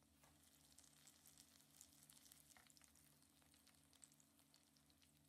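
Faint, irregular crackling and sizzling of food frying in a pan, over a low steady hum.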